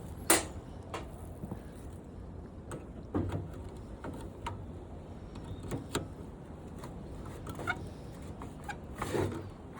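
Scattered clicks and knocks of hands and tools working wires and parts off an old washing machine, the sharpest about a third of a second in and another small cluster near the end, over a low steady hum.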